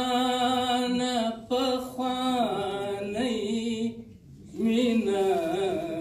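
A man's voice singing verse unaccompanied, in long held, slowly bending notes, with a short pause for breath about four seconds in.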